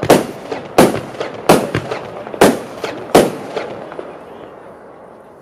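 Heron Element G compound firework cake firing its last shots: five sharp bangs about three-quarters of a second apart, with smaller pops between them. The sound then dies away over the last two seconds as the cake finishes.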